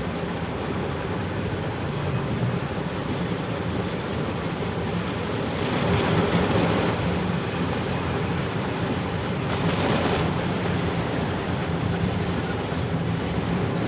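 Road traffic noise: a steady engine rumble under a hiss of wind and road noise, swelling as vehicles pass about six and ten seconds in.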